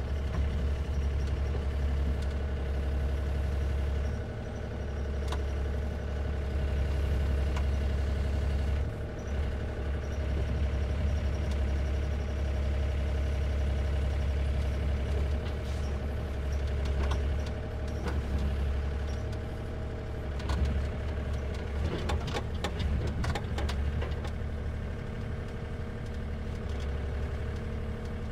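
Diesel engine of a Takeuchi TB045 excavator running steadily at idle. About twenty seconds in, a run of sharp clicks and knocks sounds over it.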